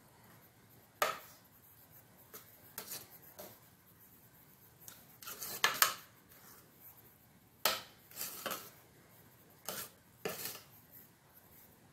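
A metal spoon scraping and clinking against the side of a metal pot while stirring thick saleeg (rice porridge). The strokes come irregularly, every second or so, and the loudest is about six seconds in.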